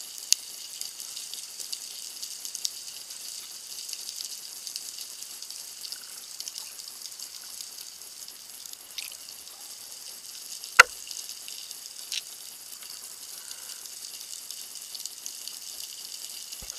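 Underwater background crackle heard through a camera housing: a steady high-pitched crackling hiss of fine clicks, with a few sharper clicks, the loudest about eleven seconds in.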